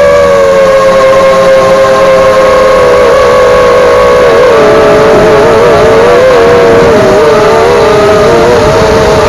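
Eachine Falcon 250 quadcopter's brushless motors and propellers whining in flight. Several close motor tones waver up and down in pitch as the motors keep changing speed, more unsteadily from the middle on.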